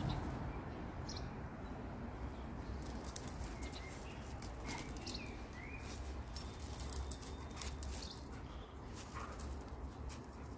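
Australian Shepherd puppy and Alaskan Malamute playing on gravel: faint scuffs and clicks of paws and a trailing leash, with a few short high squeaks near the middle.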